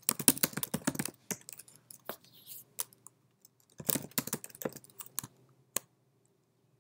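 Typing on a computer keyboard: a quick run of keystrokes, a few scattered ones, another run about four seconds in, then the typing stops near the end.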